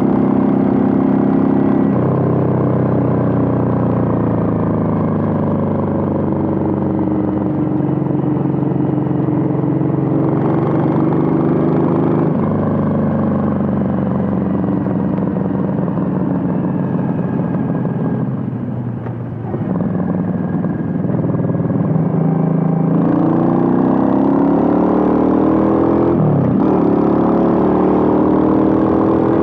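Suzuki VL800 Volusia's 805 cc V-twin running under way, its exhaust note sliding down and up with the throttle. It eases off about two-thirds of the way through, then climbs in pitch and drops back twice near the end, as on gear changes.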